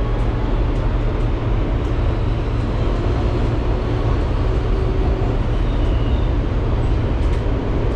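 Steady rumble and wheel noise of a moving New York City subway car, heard from inside the car.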